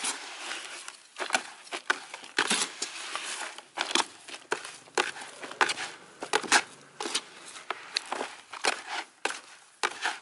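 Metal hand trowel scraping and scooping through potting soil mixed with raw rice husks in a plastic tub. It makes a rapid, irregular run of scrapes and crunches, several a second.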